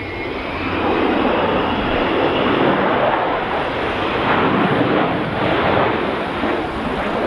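Avro Vulcan's four Rolls-Royce Olympus turbojets as the bomber flies past close by: a loud, dense jet roar that swells about a second in and stays loud.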